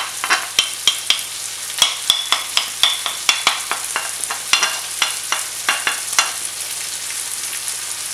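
Noodles, sofrito and freshly added tomato sizzling in a pan while a utensil stirs them, with many quick knocks and scrapes against the pan. The knocks die away about six seconds in, leaving the sizzle.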